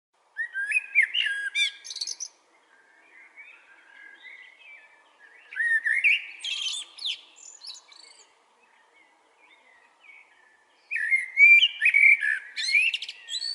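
A songbird singing three loud phrases of rapid, varied warbling notes, about five seconds apart, with quieter twittering in between.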